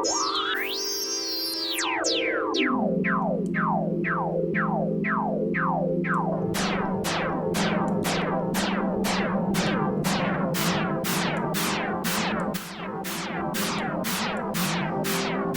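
Software synthesizer in Logic Pro playing a rapid train of short zapping notes, each falling sharply in pitch, over a held low note. Near the start one tone glides up and back down, and about six seconds in the zaps speed up to roughly three a second.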